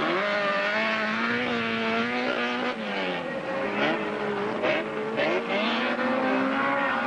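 Several small autocross race cars running together, their engines revving up and down so that the notes rise, fall and cross one another.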